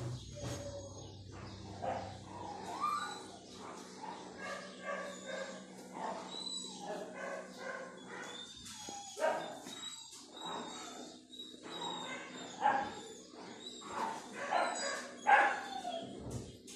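Small long-haired terrier-type dog barking and yipping again and again in short, high calls, with a few louder barks near the middle and toward the end.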